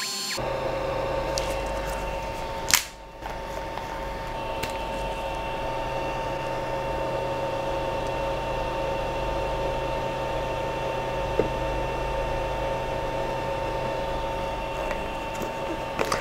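Creality LD-001 resin printer running with a steady motor hum and a whine, its build plate being driven up. A sharp click comes about three seconds in.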